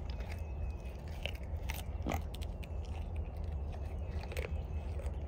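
A goat crunching and chewing a piece of raw carrot, with irregular sharp crunches about once a second over a steady low rumble.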